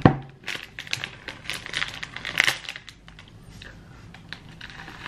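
Rustling, crinkling and clicking handling sounds: a dense run of short sharp clicks and crackles for about three seconds, then only a few faint scattered ticks.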